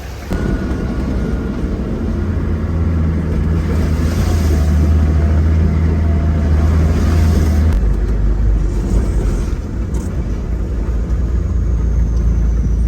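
A motor vehicle engine running with the rumble of travel. The level jumps up just after the start, and about eight seconds in the engine's steady low note drops lower.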